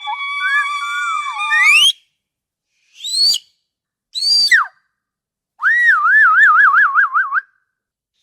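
Killer whale (orca) calls in quick succession. A long call of steady tones sweeps upward at its end, two short upswept squeals follow, and then a warbling call wavers rapidly up and down in pitch for about two seconds.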